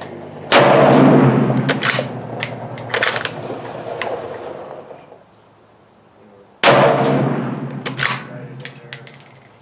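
Two 7.62x39 rifle shots from a Ruger American Ranch bolt-action, about six seconds apart, each with a long echoing decay. Fainter sharp cracks and clicks come between them.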